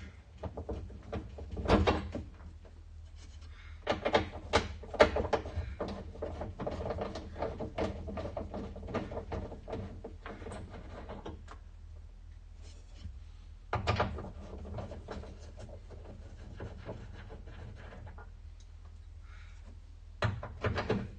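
Hand tools and metal parts being worked while a 1969 Fiat 500 F door is unbolted from its hinges: scattered clicks and metallic knocks, with dense runs of clicking from about four to eleven seconds in, and louder knocks about two seconds in, around fourteen seconds in and near the end.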